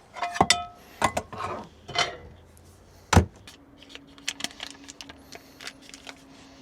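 Kitchen clatter as cookware and ingredients are handled and set down: several clicks and clinks, one ringing briefly like metal or glass, and a loud knock about three seconds in. A steady low hum starts just after that.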